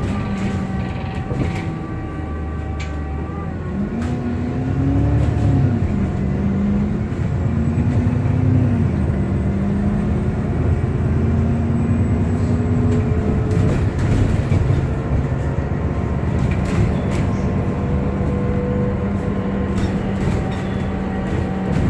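Alexander Dennis Enviro 400MMC double-decker bus heard from on board as it runs on the road. The engine note rises and drops several times about four to thirteen seconds in, as the bus pulls away and changes gear, then settles to a steady tone. Over it runs a constant whirring whine, with a few rattles and knocks from the body.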